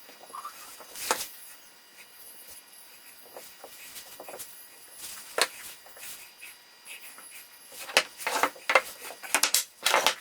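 Workshop handling noise: scattered clicks and knocks of wooden parts and tools being moved, with a quick run of sharper knocks near the end.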